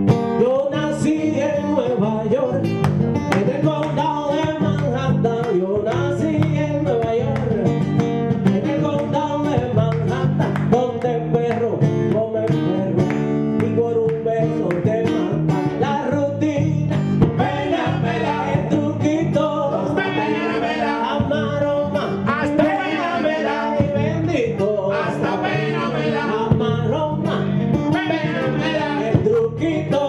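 Small live band playing a Latin song: a hollow-body guitar picking a melodic line over an electric bass guitar, with voices singing in places.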